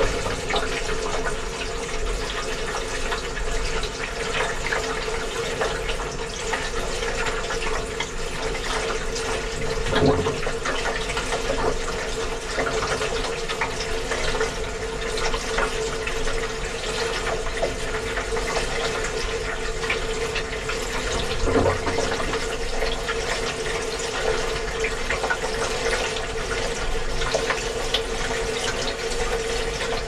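Gorenje WA 65205 washing machine heard from inside its stainless steel drum during a wash: steady running water over a steady hum, with a knock about a third of the way through and another about two thirds through.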